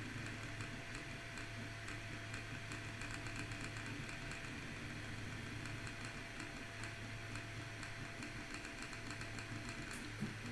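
Voron 2.4 3D printer running a print, its stepper motors humming steadily under a rapid, irregular ticking from around the toolhead, with one sharper click near the end. The ticking comes from a loose screw on a gantry linear rail.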